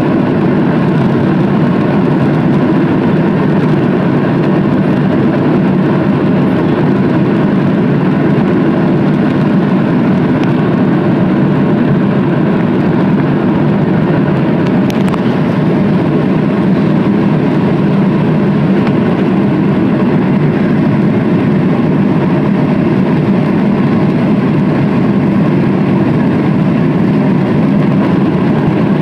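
Boeing 737 jet engines running steadily, heard from inside the passenger cabin over the wing as a loud, even rumble and rush.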